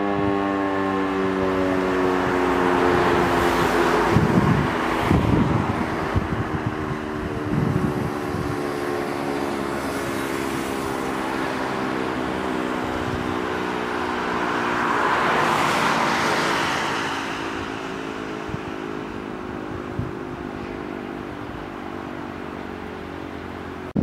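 E57 electric motor siren under its mushroom-shaped protective roof, winding down after being switched off: one steady tone slowly falling in pitch and fading. Wind gusts buffet the microphone a few seconds in and again near the middle.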